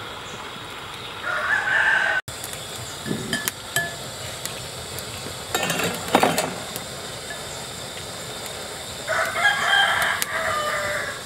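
A rooster crowing twice, about a second in and again near the end, with a short clatter in between.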